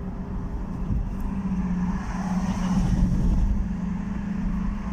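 Car engine and road noise heard inside the cabin, a steady low drone that grows louder about two to three seconds in and then eases.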